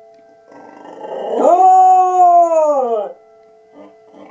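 A cocker spaniel gives one long howl in the middle, starting rough, sliding up, holding, then falling away as it ends. Under it a steady siren tone sounds: the monthly emergency siren test that sets him howling.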